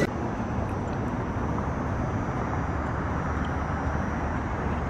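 Steady outdoor street noise with a low rumble.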